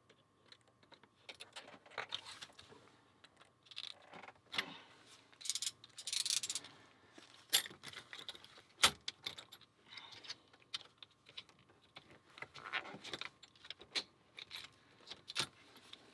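Keys jangling and clicking against metal as they are handled and worked loose, in uneven bursts of sharp clicks and short jingles.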